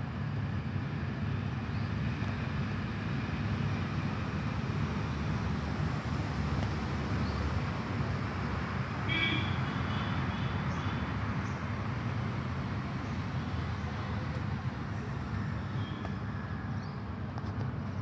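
Steady low rumble of distant road traffic, with a short high-pitched tone about nine seconds in.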